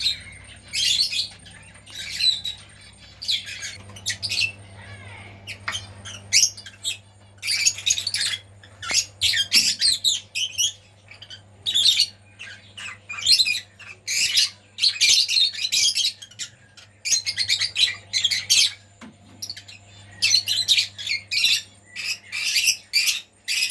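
Birds chirping and squawking, many short harsh calls in quick irregular runs, over a faint steady low hum.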